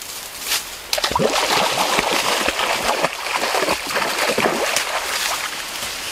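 Water splashing and sloshing, starting suddenly about a second in and tailing off near the end.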